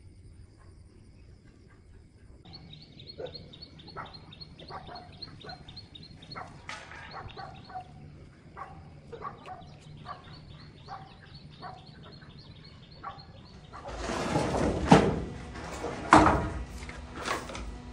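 Short repeated bird-like calls over a rapid high chirping trill. About fourteen seconds in, loud scraping and sharp knocks of bricks and mortar being worked by hand take over, with two hard knocks about a second apart.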